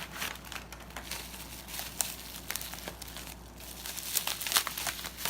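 Packaging crinkling and rustling as it is handled, a run of irregular sharp crackles, louder around two seconds in and again after four seconds.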